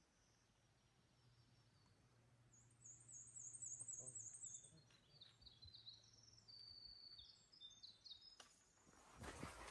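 Faint, high-pitched songbird song: a quick run of thin repeated notes, then a few lower notes. Footsteps crunching on the trail begin near the end.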